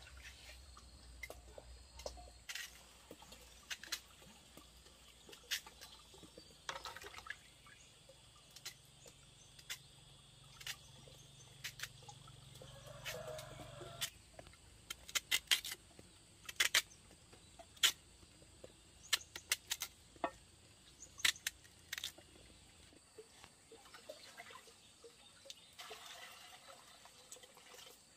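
Scattered light clicks and knocks at an uneven pace, busiest in the middle stretch, over a faint background.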